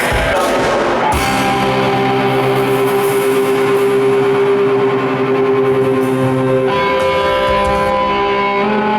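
A rock band playing, with guitar chords held and ringing: one chord sustained for several seconds, changing to another about two-thirds of the way through.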